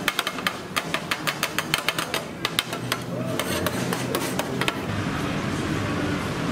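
Metal spatulas clacking and scraping on a flat steel griddle as food is chopped and stir-fried: rapid, irregular clacks, several a second, stopping about four and a half seconds in.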